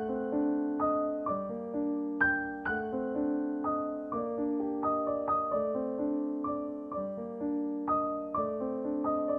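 Solo piano background music: notes struck about twice a second in a rippling broken-chord pattern, each one ringing out and fading.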